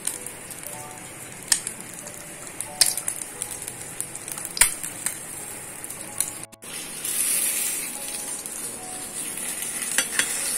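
Egg frying in oil in a small frying pan: a steady sizzle with sharp spitting pops every second or so, the hiss growing louder after a short break about two-thirds through.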